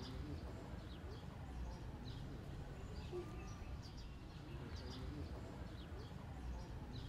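Faint outdoor background: scattered short high chirps, like small birds, over a steady low rumble.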